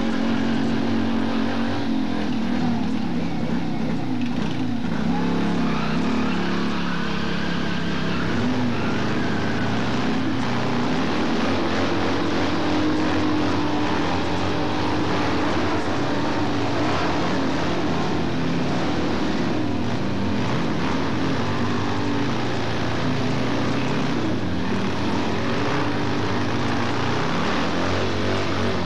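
A live band playing loud rock music, a dense steady wash with bass notes stepping from pitch to pitch.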